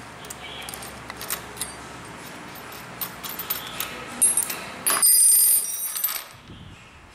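Small metal parts clicking and clinking as the washers on a brush cutter's gearhead blade mount are worked loose and handled with an Allen key, with a loud high metallic ring about five seconds in.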